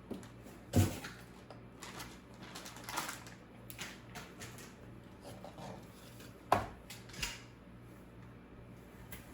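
Scattered clicks and knocks of hardware being handled, two of them louder, about a second in and again about two-thirds of the way through, over a faint steady hum.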